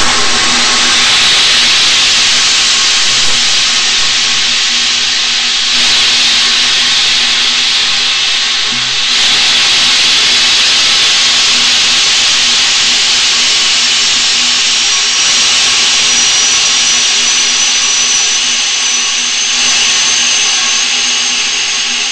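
Small rocket's motor burning during powered ascent, heard from the onboard camera on the rocket itself: a loud, steady rushing noise. A thin high whistle creeps slowly up in pitch from about two-thirds of the way through.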